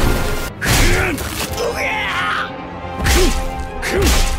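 Anime fight sound effects: several sudden hits and whooshes, spaced about a second or more apart, over dramatic background music.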